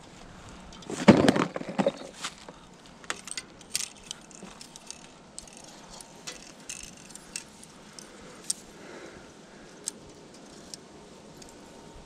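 Handling noise of fishing gear: a louder rustling knock about a second in, then scattered light clicks and clinks as the rod and tackle are moved about.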